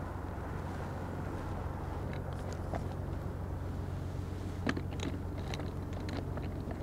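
A folding camp chair being handled and set up on concrete: a scatter of light clicks and knocks, the sharpest about two-thirds of the way through, over a steady low hum.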